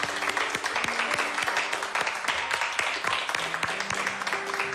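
A small group of people clapping and applauding, with held notes of background music underneath.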